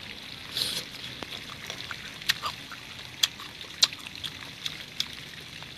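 Chewing crunchy pieces of young kedongdong (ambarella) fruit, with a few sharp crunches and mouth clicks about a second apart and a short hissing breath near the start.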